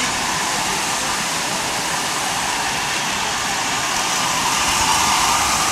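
Steady hall noise of a crowded train show, an even wash with no distinct events, growing a little louder near the end.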